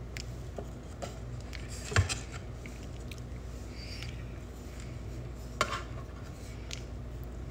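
Handling knocks at a metal wax pan as a mounted print board and a wide wax brush are picked up: one sharp knock about two seconds in and a lighter one near six seconds, over a steady low hum.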